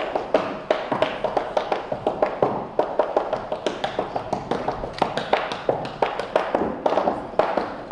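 Tap shoes striking the floor in a fast, rhythmic run of taps, several a second with louder accented strikes.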